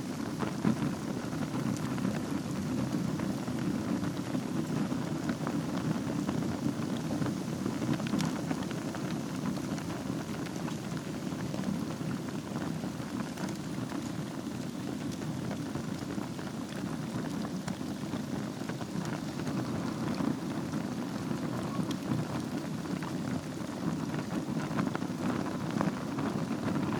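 Wood fire burning in a fireplace over a bed of embers: a steady low rush of flames with many small, scattered crackles and pops throughout.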